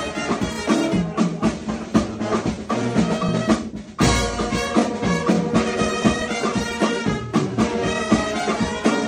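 Music with brass and drums. It thins out briefly about three and a half seconds in, then comes back abruptly.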